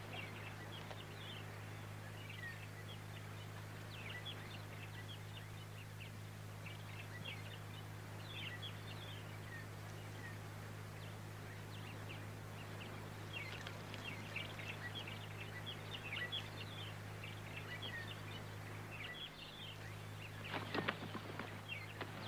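Small birds chirping and twittering in short, scattered calls over a steady low hum from the soundtrack. A few sharp knocks come near the end.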